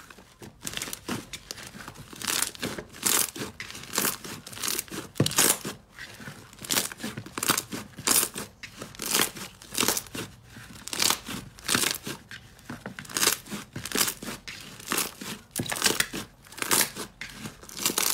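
Blue and white slime kneaded and squeezed by hand, crackling and squishing in short bursts about one or two times a second.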